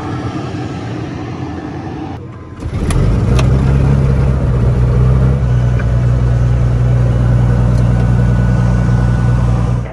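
Steady apron noise, then after a cut about two and a half seconds in, a light aircraft's piston engine runs loud and steady with a low, even note.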